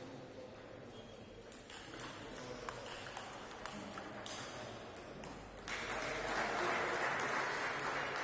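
Table tennis rally: the celluloid ball clicks off the paddles and table in quick succession. About five and a half seconds in, a louder stretch of even rushing noise takes over.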